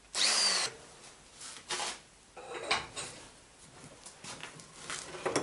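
Small electric die grinder with a mounted grinding stone run briefly against a sprocket in a vise, easing the outer rim where the chain catches. Its whine falls away within about half a second. Scattered clinks and knocks of metal parts being handled follow.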